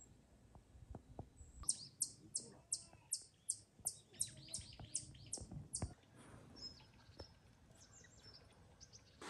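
A songbird singing a fast series of short, high, falling notes, about four a second, starting a second and a half in and stopping about six seconds in, followed by a few softer scattered calls. Faint soft clicks and knocks underneath.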